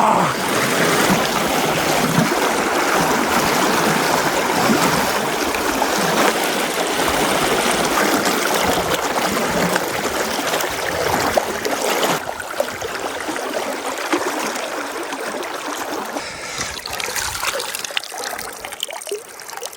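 River water rushing and trickling past: a steady wash of moving water that grows quieter over the last few seconds.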